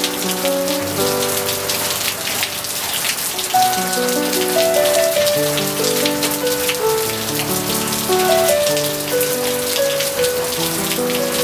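Steady rain falling, with gentle piano music of slow held notes playing over it.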